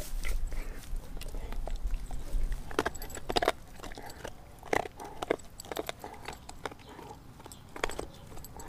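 A Doberman gnawing on a frozen raw pig's foot: irregular crunches and clicks of teeth on frozen meat and bone, with a low rumble during the first few seconds.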